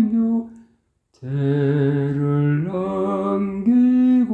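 A single unaccompanied voice sings a slow Korean song phrase in long held notes. It breaks off for a moment about half a second in, then goes on with the next phrase, stepping between sustained pitches.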